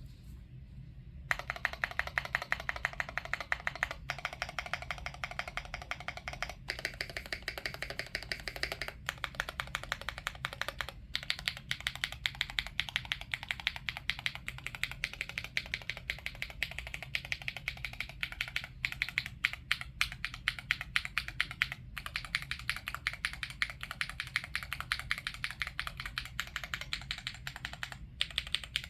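Wind Z75 mechanical keyboard being typed on quickly and continuously, a dense run of keystroke clicks with a few brief pauses; the typing starts about a second in.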